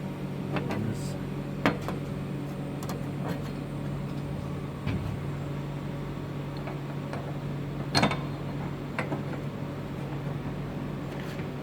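Scattered clicks and knocks of parts being handled and set in place, with one louder knock about eight seconds in, over a steady low hum.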